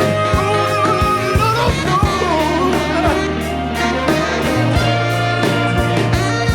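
Background music with a steady beat, a sustained bass and a melody line that wavers in pitch.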